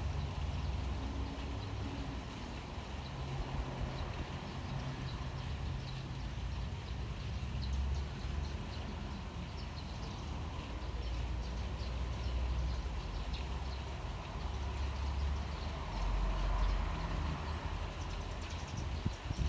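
Steady rain falling, with scattered drops tapping over a low rumble.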